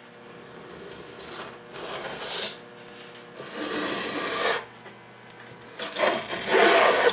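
Hand plane shaving wood in four strokes of about a second each, trimming overhanging veneer flush along the edge of a drawer front. The last two strokes are the loudest.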